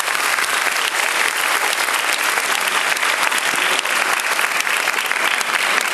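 Audience applauding: many hands clapping at a steady level, without a break.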